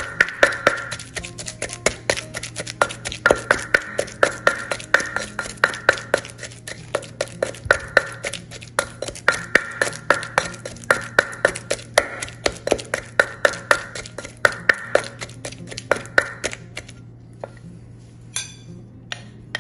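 Wooden pestle pounding in a terracotta mortar, about three strikes a second, crushing dried fish with chili and garlic into a paste. The pounding stops near the end.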